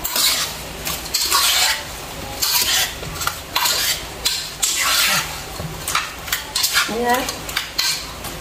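Whole climbing perch in a wet marinade being tossed and mixed by hand in a pot: irregular wet shuffling and rubbing, about two strokes a second.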